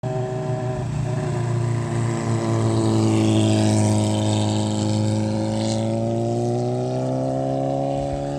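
A motor running with a steady hum, its pitch sagging slightly and rising again, then cutting off suddenly at the end.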